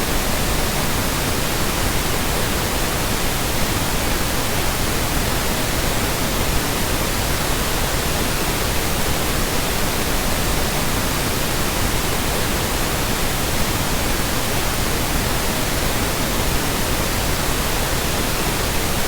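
Steady pink noise from a noise generator: an even hiss spread across all pitches, weighted toward the low end, without change or break.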